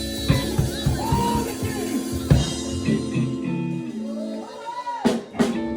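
Live church praise-band music: held keyboard chords over a bass line and drums, with voices gliding above, and two cymbal crashes about five seconds in.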